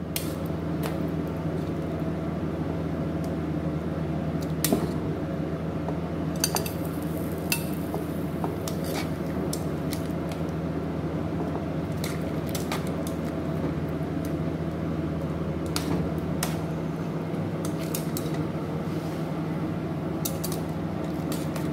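Metal tongs clinking and scraping against a metal stockpot as chicken carcass pieces and thyme are lifted out of hot stock. The sharp, irregular clinks sit over a steady hum.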